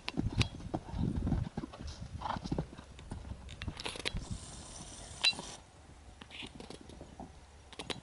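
Hoofbeats of a horse cantering on sand footing: dull thuds, loud in the first second and a half, then fainter as the horse moves away. A brief hiss comes in about four seconds in.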